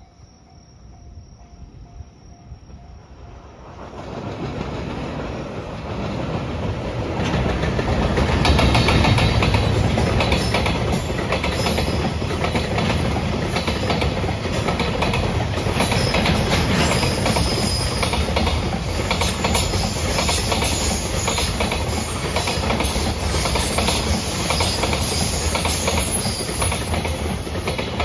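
Freight train passing close by, its wheels clattering over the rails. The sound builds about four seconds in and stays loud, and a level-crossing warning bell dings faintly at the start.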